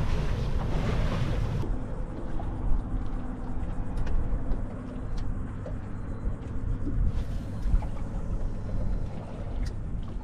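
Wind rumbling on the microphone by the water, with a faint steady hum underneath.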